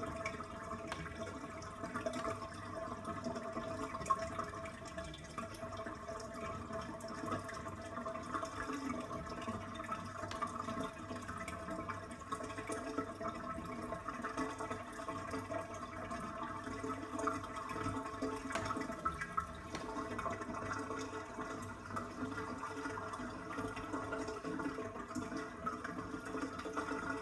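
Bath water draining steadily out of a bathtub.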